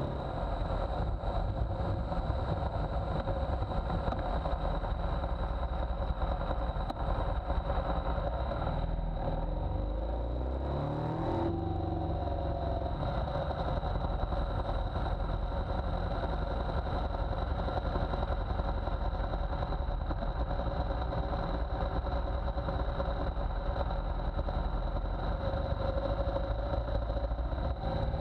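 2017 BMW R1200GSA's boxer-twin engine running steadily while the bike is ridden. About ten seconds in the engine note climbs in pitch, then settles back into steady running.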